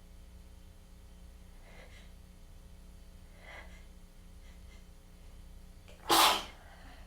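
A single loud, sharp sneeze about six seconds in, part of a tickly, congested sneezing fit.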